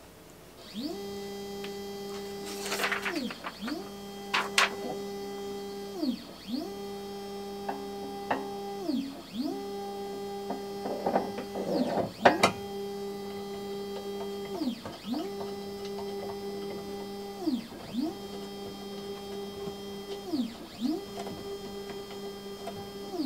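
Voxelab Proxima 6 resin printer's Z-axis stepper motor raising the build plate in about eight moves in a row. Each move is a whine that rises, holds steady for about two seconds, then falls away. A few sharp knocks from handling the printer cut in, the loudest about halfway.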